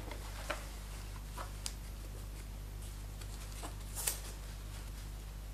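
White protective wrap being lifted off a laptop by hand: a few faint rustles and soft ticks, the clearest about four seconds in.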